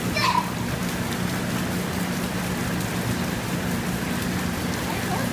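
Water running and splattering steadily in a children's water play table, with a steady low hum underneath. A short high-pitched voice sounds near the start.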